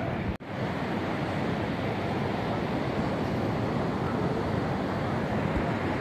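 Steady rushing of sea surf and wind across the open beach, cutting out for a moment about half a second in.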